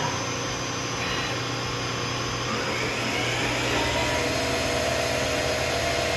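CNC lathe running a test program: a steady machine hum with faint rising whines as the turret slide moves, and a higher steady tone coming in about four seconds in.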